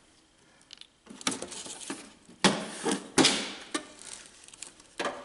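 Hands taking parts off a car's plastic windshield cowl: a run of knocks, clatters and scrapes as a rubber strip is pulled free. The sharpest knocks come about two and a half and three seconds in, with another near the end.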